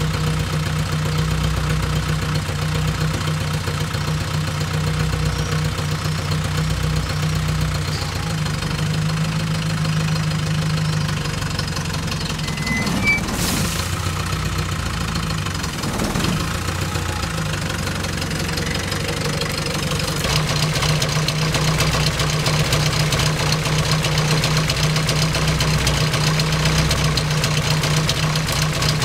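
Land Rover Santana 109 Series III engine idling steadily, with two short clicks about two seconds apart midway.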